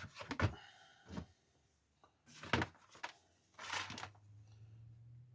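A few sharp knocks and clatters of a handheld torch being handled and fitted onto a wooden walking-stick mount, then a faint low steady hum from about four seconds in.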